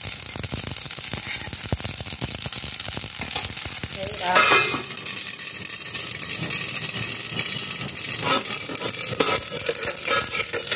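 Flaxseeds crackling and popping as they dry-roast in a hot kadhai: a steady patter of small pops, the sign that the seeds are roasted and bursting. About four seconds in, a stainless steel lid is set on the pan with a louder metallic clatter.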